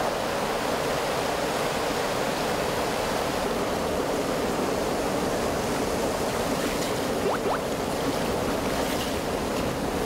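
Mountain stream rushing over rocks in white-water rapids: a steady rush of water.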